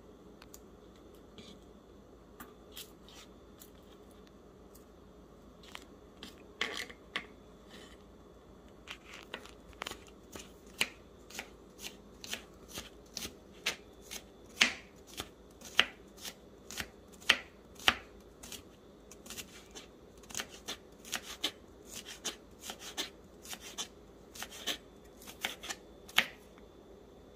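Vegetables being cut up: irregular sharp clicks and snaps, starting a few seconds in and coming about one or two a second.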